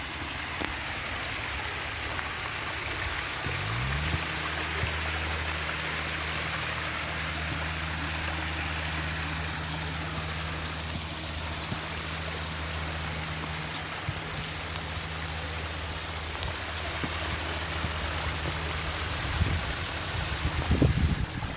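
Rushing water of a waterfall or stream, a steady even hiss. A few seconds in, a low motor hum rises briefly in pitch, then holds steady under the water before fading near the end, where a few low thumps are heard.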